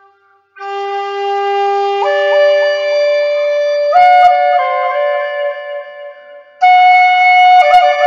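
Native American flute playing a slow melody of long held notes, with short ornamental flicks between notes. It comes in about half a second in, steps up in pitch from note to note, drops away briefly about six seconds in, then returns on a higher note.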